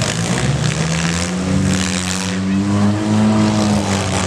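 Several demolition derby cars' engines running and revving at once, pitches rising and falling, with a few short bursts of harsher noise over them.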